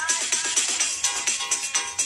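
Background music with a fast, steady beat. A run of short falling notes in the first second gives way to a held high chord.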